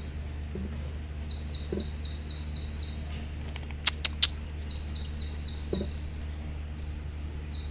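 A bird calling: runs of about six quick, high chirps, each sliding downward, repeated three times. A few sharp clicks come about four seconds in, over a low steady hum.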